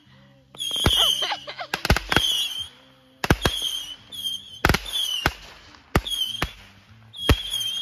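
Fireworks going off: about a dozen sharp bangs, some in quick pairs, with a hiss between them.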